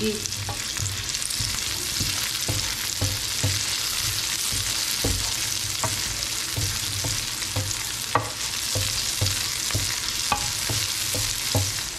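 Chopped garlic and onion sizzling in olive oil in a nonstick frying pan, stirred with a wooden spatula that knocks and scrapes against the pan several times a second. The garlic is already golden brown and the onions have just gone in.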